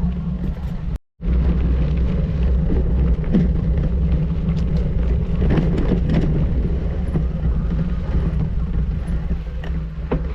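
A vehicle engine running steadily with road noise, a constant low hum throughout. It cuts out completely for a moment about a second in, then resumes unchanged.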